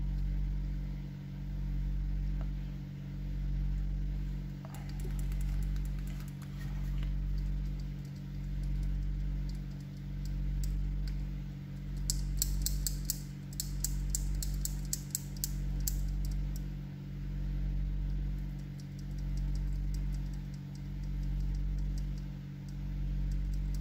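The push-to-talk tactile switch on a Redell UV99 Plus walkie-talkie's circuit board clicking rapidly as it is pressed over and over for a few seconds, about halfway through, while the switch is tested after being cleaned with alcohol because it would not register presses. Under it, a steady low hum swells and fades about every one and a half seconds.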